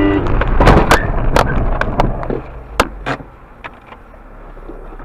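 A car collision heard from inside the dashcam car: a horn cuts off as a loud crash hits, followed by several sharp knocks and clatter over the next two seconds. After that only road noise is left.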